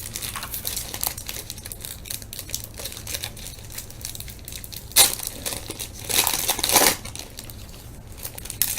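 Wrapper of a 1998 Bowman Chrome football card pack crinkling as it is handled and torn open, with a sharp rip about five seconds in and a longer burst of crinkling just after six seconds.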